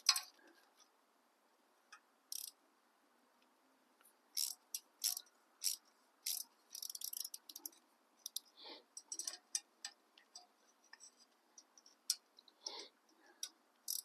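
Metal hand tools clicking and rattling in irregular short bursts as a tool is worked on the exhaust's over-tight Allen bolts.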